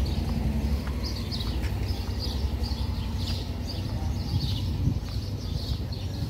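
Small birds chirping, short high chirps repeating every half second or so, over a steady low rumble.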